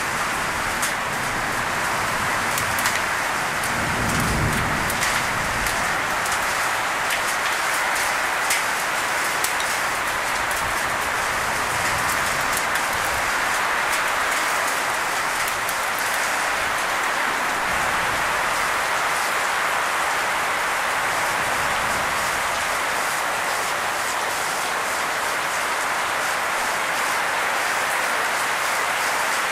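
Heavy rain pouring steadily on foliage, grass and a wooden deck, with scattered sharp taps of nearby drops. There is a brief low rumble about four seconds in.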